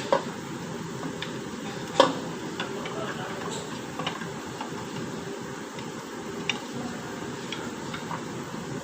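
Metal tools and parts clinking and knocking during work on a rear axle: scattered light clicks, with a sharp knock just after the start and a louder one about two seconds in, over a steady background hum.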